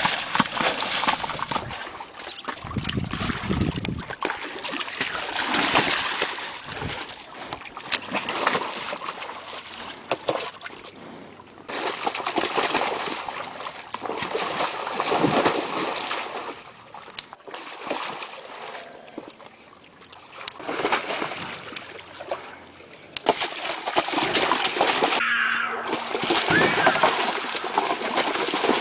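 White tiger splashing and sloshing water in a tub as it paws at a ball, in repeated irregular bursts of splashing.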